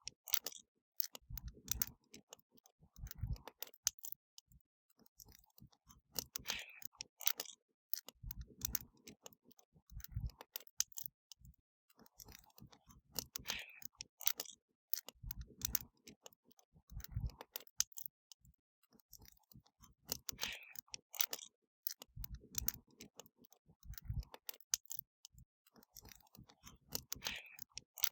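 Wood fire burning, with sharp crackles and snaps and softer low pops from the burning logs. The same run of crackles comes round about every seven seconds.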